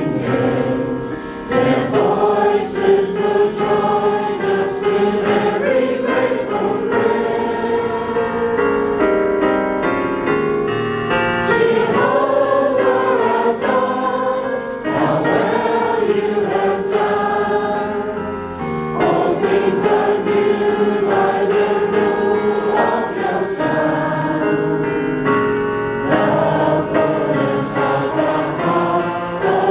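Congregation singing a hymn together, many voices holding slow, long notes.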